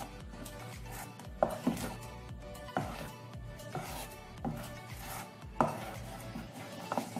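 A utensil stirring thick pancake batter in a stainless steel bowl, knocking against the side of the bowl at irregular intervals, over soft background music.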